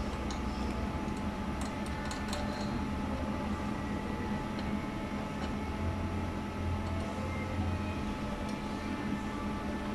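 Steady low machine hum, with a few faint light ticks of a hex key working the adjustment screws of a laser tube's mirror mount.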